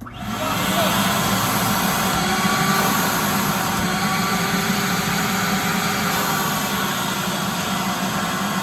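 A 4-gallon shop vac switched on and running: its motor whine and rush of air start suddenly, hold steady, then wind down in pitch at the very end as it is switched off.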